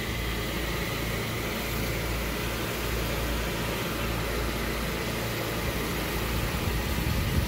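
Champion inverter generator's engine running steadily under load, powering all ten household circuits through the transfer switch.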